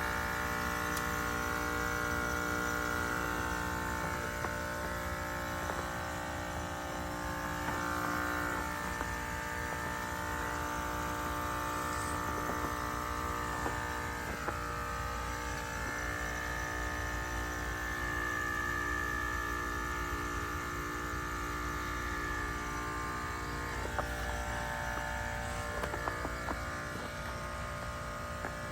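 2025 Carrier Comfort heat pump outdoor unit running through its defrost cycle: a steady buzzing hum whose pitch wavers slightly now and then, with a few faint ticks near the end.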